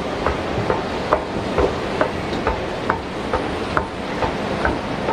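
Regular footsteps at a walking pace, about two a second, over a steady background hum.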